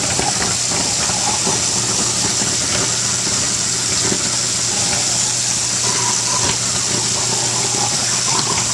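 Half-horsepower kitchen garbage disposal running with tap water pouring into it, grinding fruit scraps such as a pineapple core: a steady motor hum under the rush of water, with irregular clatter from the pieces being chewed up.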